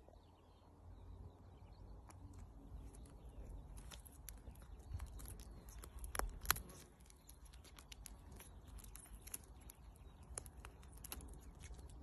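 A falcon tearing at a carcass held on a falconer's glove: scattered soft clicks and crunches, with one sharper snap about halfway through, over a low rumble.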